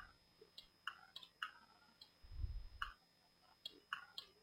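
Faint, irregular clicking from computer input while modelling, about ten clicks at uneven spacing, with a soft low thump about halfway through.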